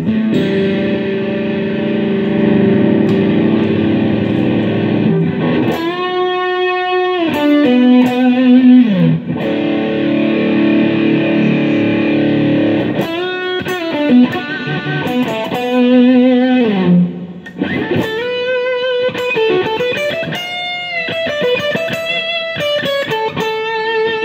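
HSS Strat-style electric guitar played through overdrive: a held chord for the first few seconds, then single-note lead phrases with string bends that rise and drop back, and held notes with vibrato.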